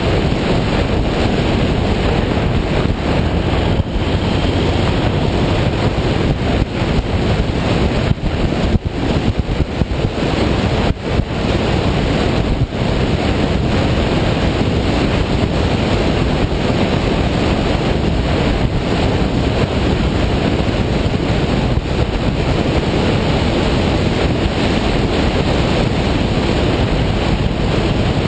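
Steady wind rushing over the microphone of a camera on a moving motorcycle, drowning out the engine and tyres, with a few brief dips.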